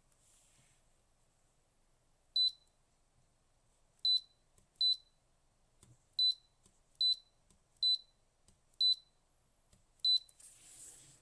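Electric kettle's control panel beeping: eight short, high beeps at uneven intervals, then a brief hiss near the end.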